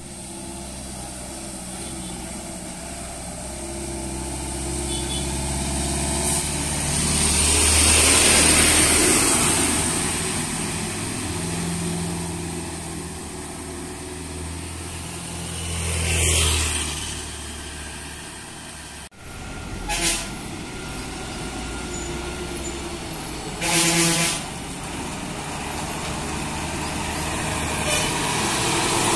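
Heavy diesel lorry engines running and passing close as the trucks work round tight hairpin bends, swelling loudest twice as they go by. A truck horn sounds briefly about 20 s in and again, longer and louder, about 24 s in.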